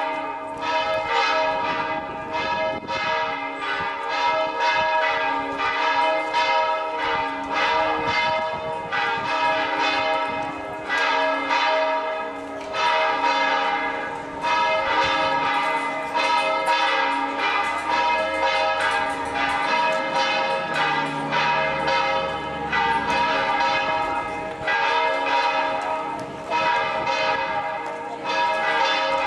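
Church bells pealing for a feast-day procession, struck in quick succession over and over, each stroke ringing on into the next.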